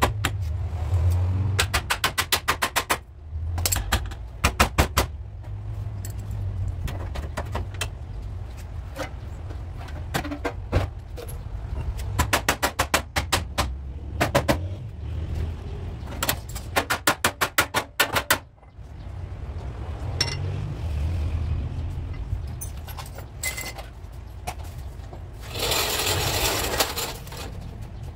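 Hammer blows on a car body's sheet steel, in several quick runs of rapid strikes, as the rear floor and sill are beaten into shape. A short rushing noise comes near the end.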